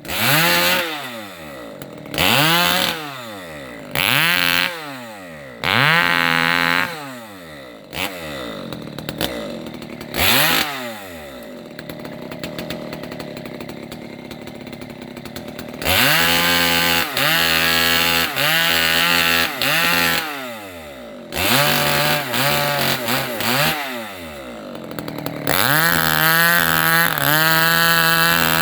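Two-stroke chainsaw revving in about five short throttle bursts, then idling for several seconds. It then runs at high revs in three long stretches, its pitch dipping and wavering under load as it cuts through the branches of a felled rubber tree.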